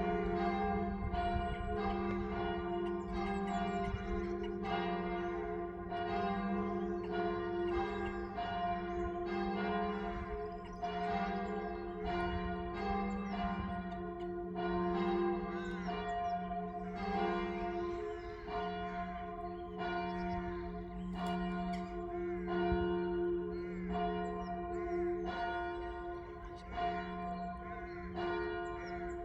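Church bells ringing: several bells of different pitch strike one after another in a steady, even run of strokes, each stroke ringing on into the next.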